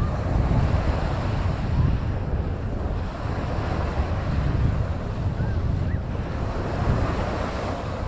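Sea waves washing on the beach, with wind buffeting the microphone in a steady low rumble.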